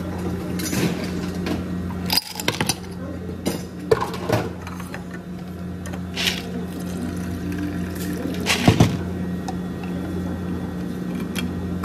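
Ice cubes clattering into a stainless steel tumbler in several separate knocks, the loudest near the end, over a steady low electrical hum. Water is poured over the ice near the end.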